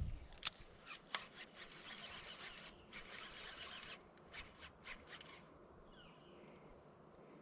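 Faint fishing-reel retrieve as a crankbait is cranked back: a soft hissing, rasping whir with scattered clicks, fading to quiet after about five seconds.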